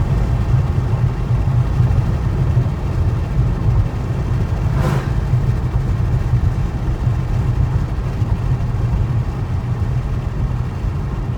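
Steady low drone of a 2012 Ford Mustang Boss 302's 5.0-litre V8 and the road, heard from inside the cabin while driving. There is one brief sharp sound about five seconds in.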